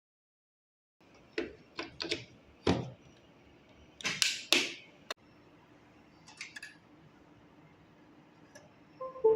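A string of separate sharp clicks and knocks at uneven gaps, with a louder pair of knocks about four seconds in and a short ringing clink near the end.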